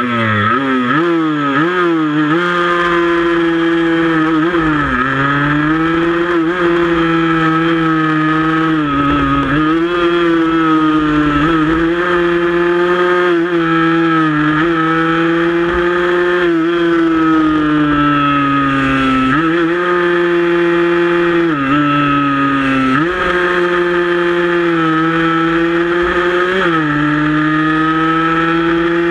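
Small 115 cc single-cylinder racing motorcycle engine heard onboard at racing speed: it climbs quickly through the gears in the first couple of seconds, then runs at high revs, with short drops and pick-ups every few seconds as it shifts or backs off for corners. Wind rushes over the microphone underneath.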